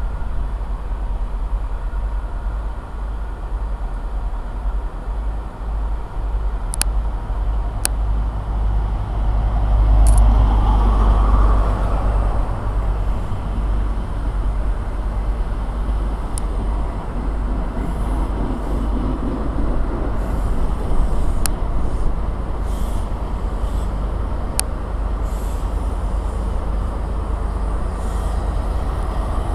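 A train running at a station platform: a steady low rumble with a few sharp clicks, swelling louder for a couple of seconds about ten seconds in.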